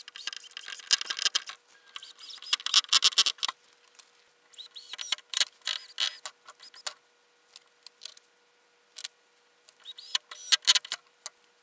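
Cordless drill boring into a wooden block, a scratchy cutting noise that comes in three runs with short pauses between.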